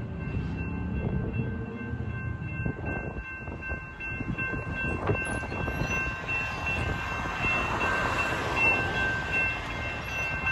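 Metrolink commuter train rolling past on the rails, a steady rumble of wheels and cars that swells about two-thirds of the way through, with thin steady high-pitched tones above it.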